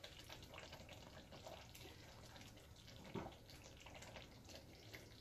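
Near silence: faint scattered small pops and ticks, with one slightly louder soft knock about three seconds in.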